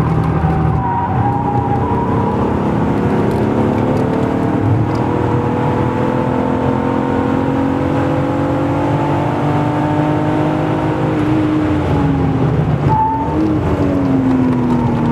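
BMW E36 328i's straight-six engine, fitted with an M50B25 intake manifold, heard from inside the cabin. It pulls steadily up through the revs for about ten seconds. Near the end the revs drop, with a quick rise and fall in between.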